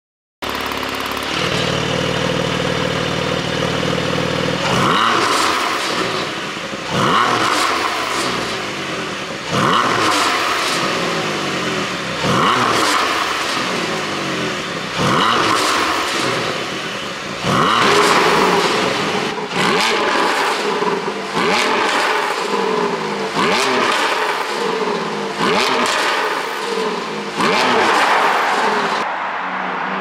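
Porsche 718 Boxster GTS 4.0-litre flat-six, exhaust flaps held fully open, idling steadily and then blipped about ten times in a row. Each rev climbs quickly and falls away with pops and crackles from the exhaust on the overrun, the pop tune at work.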